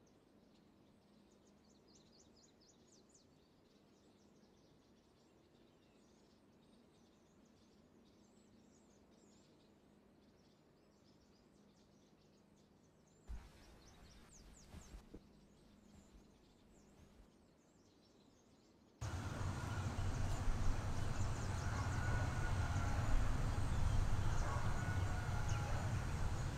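Quiet outdoor ambience with faint high chirps from birds or insects. A few soft knocks come past the middle. About two-thirds of the way through, a much louder rural ambience cuts in: a low rumble with bird calls over it.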